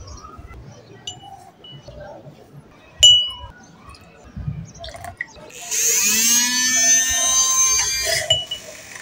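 Handheld electric milk frother whisking coffee in a tall glass: its motor whines up in pitch as it starts about halfway through, runs steadily for a couple of seconds, then stops near the end. Before that, a spoon clinks once against the glass.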